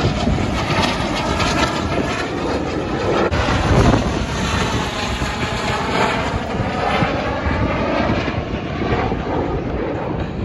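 Military jet aircraft flying past, a loud jet engine noise whose tone sweeps in curving bands as it passes.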